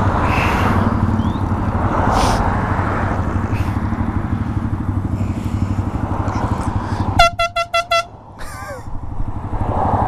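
Motorcycle engine running with wind rush while riding. About seven seconds in it is cut through by a quick run of about six short, high blasts from a canned compressed-air horn strapped to the motorcycle's handlebars.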